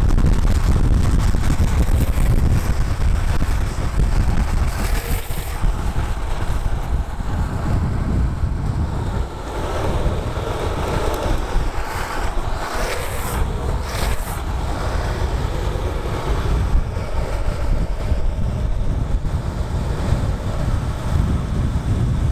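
Heavy wind buffeting the microphone over the steady roll of downhill skateboard wheels (Powell Peralta DH Snakes) on smooth asphalt at speed. A few brief hissing bursts stand out about five seconds in and again around twelve to fourteen seconds in, typical of the wheels sliding.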